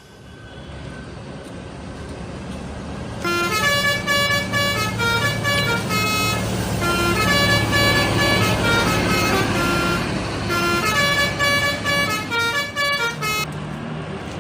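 A bus's engine running as it draws nearer, then its telolet multi-tone air horn plays a tune of quick, stepping notes for about ten seconds, with a short break about two-thirds of the way through, over the engine.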